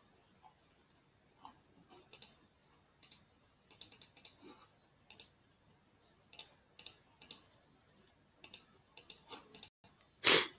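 Scattered clicks of a computer mouse, some single and some in quick runs of two to four, with a brief louder noise near the end.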